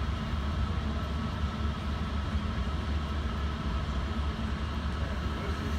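Passenger train running through a station, heard from inside the carriage: a steady low rumble with no breaks or separate knocks.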